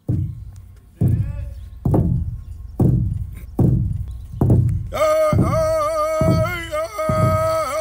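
A powwow big drum struck in unison by several drummers with padded sticks, in a slow, steady beat a little faster than one stroke a second, each stroke a deep boom that fades away. About five seconds in, a man's high voice begins singing a powwow song over the beat.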